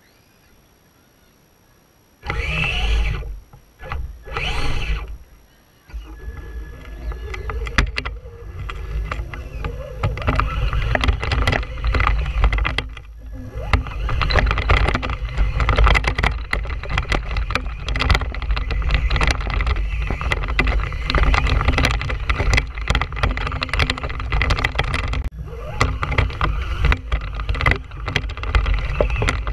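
Traxxas Stampede 2WD RC monster truck driving over grass, heard from a camera mounted on the truck: two short bursts about two and four seconds in, then from about six seconds a continuous rattling run with many sharp knocks as it bumps along.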